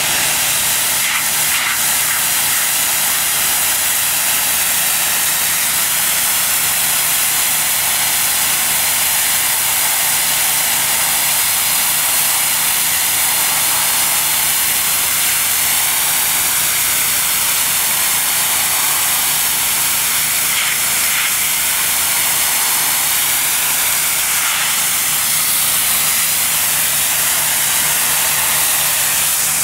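Pressure washer jet from a fan nozzle blasting a concrete sidewalk: a steady loud hiss of high-pressure water on the surface, with a steady low hum underneath.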